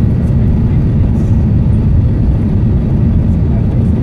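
Steady low rumble of cabin noise inside an Airbus A380-841 as it taxis, from the engines at low thrust and the airliner rolling along.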